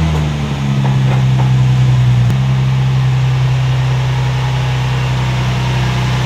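Nissan 350Z's VQ35DE 3.5-litre V6 idling just after start-up. The revs ease down in the first half-second, then it idles steadily.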